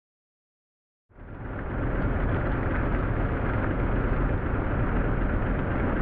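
Farm tractor engine running steadily, fading in about a second in, as the tractor drives a front-mounted roller crimper through tall standing cover crop.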